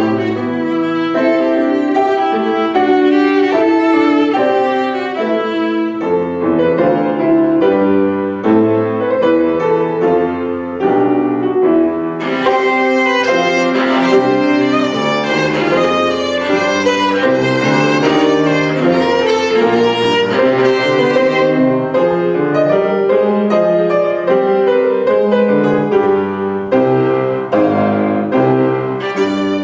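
Violin and grand piano playing a piece together, the bowed violin most prominent over the piano. The music grows brighter through a stretch in the middle.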